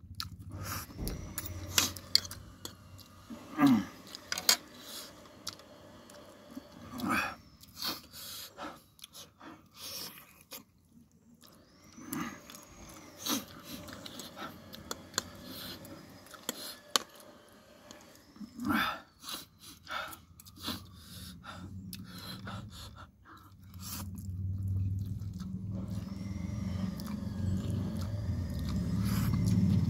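A person slurping spicy instant noodles and chewing them, with many wet mouth clicks and lip smacks and a few louder slurps. A low rumble rises over the last few seconds.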